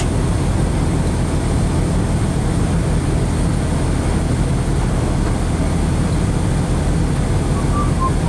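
Rally car's engine idling steadily, heard from inside the cabin as a low, even rumble.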